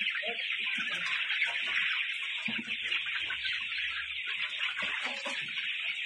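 A large flock of young Misri chickens calling all at once: a dense, unbroken chatter with scattered single calls and scuffles.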